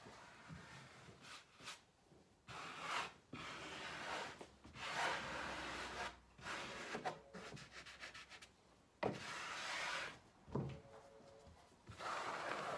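Flat trowel scraping over waterproofing fabric on a foam shower pan as the fabric is pressed and smoothed into place: a series of irregular rasping strokes, each under a second long.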